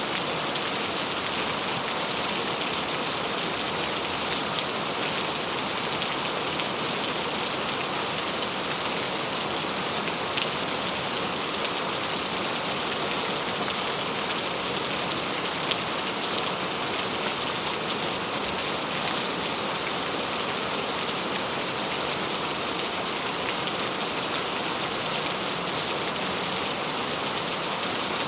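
Steady, even rainfall, with scattered small drop ticks over a constant hiss.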